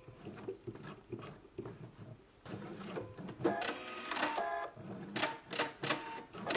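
Sewing machine stitching through several layers of cotton poplin, its needle clattering with a motor whine.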